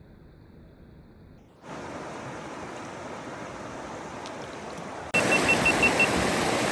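Rushing water of a mountain river, an even hiss that grows abruptly louder about two seconds in and again about five seconds in. A short run of about six quick high beeps sounds just after the second jump.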